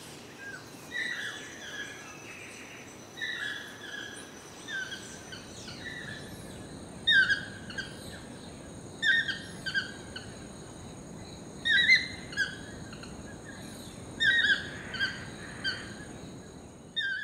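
Short, high chirping animal calls, repeated in clusters of two to four notes every second or two and louder from about seven seconds in, over faint steady high-pitched tones.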